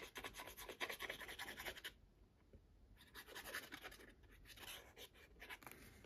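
Faint scratching and tapping of a fine-tipped glue bottle's nozzle drawn across the back of a cardstock tag while laying lines of glue. The ticks come thick and fast for about two seconds, then turn sparse, with light paper handling.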